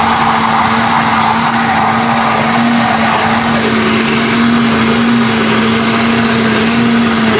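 Countertop blender running steadily at speed, mixing water, flour and seasonings into a thin liquid. It makes a constant motor hum with a whirring wash of liquid over it.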